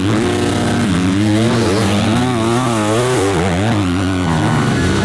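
Motocross bike engines running at high revs, their pitch rising and falling quickly and repeatedly as the throttle is worked.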